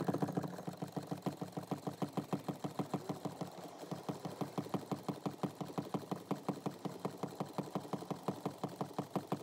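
Clutch pedal of a Mustang being pumped rapidly by hand, a steady mechanical clicking of about five clicks a second, to bleed air out of the clutch hydraulic line after the fluid was topped up.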